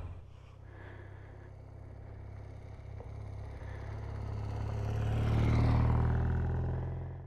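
Motorcycle engine running while riding, a steady low drone that swells louder about five to six seconds in and then eases off.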